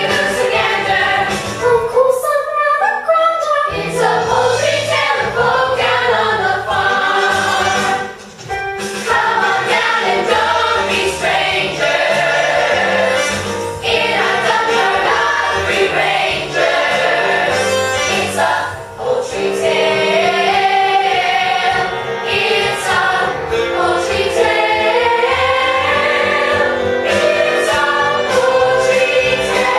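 Recorded musical-theatre song: a chorus of voices singing over instrumental backing, with two brief drops in level partway through.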